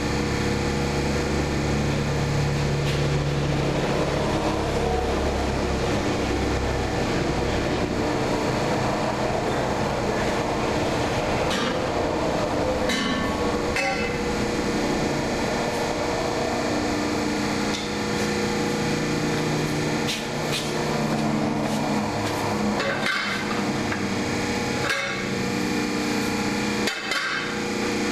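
A hydraulic pipe bender's electric pump motor runs with a steady hum. Scattered metal knocks and clanks come through it, a few around the middle and several near the end.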